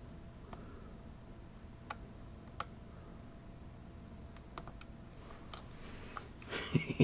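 Scattered small clicks and ticks of a Fichet lock and lockpicking tools being handled, a few isolated ones and then a quicker, louder cluster near the end.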